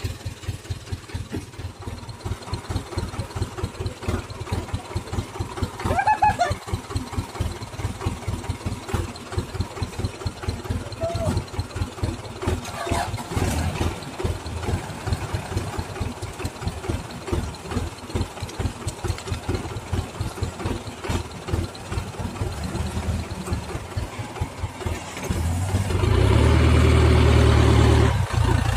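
Diesel truck engines chugging at low speed as loaded oil-palm fruit trucks crawl through mud. Near the end one truck's engine grows much louder and steadier as it passes close by.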